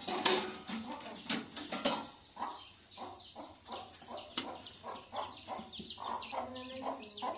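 Chickens clucking and peeping, with many quick short high calls in rapid succession. There are a few sharp knocks in the first two seconds.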